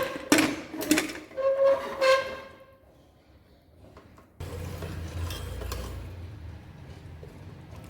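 Kitchen utensils clinking a few times, each clink ringing briefly. After a short quiet, a steady low rumble starts about halfway through.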